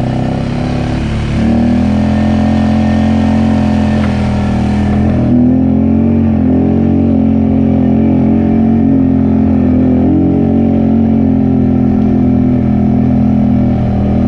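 Off-road vehicle engine running steadily while riding. It steps up in pitch about a second and a half in, then holds fairly even with small rises and dips in revs.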